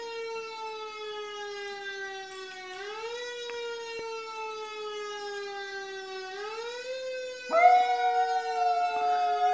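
A siren wailing, its pitch sliding slowly down and sweeping back up twice. About three-quarters of the way in, a schnauzer joins in with a loud, steady howl, answering the siren.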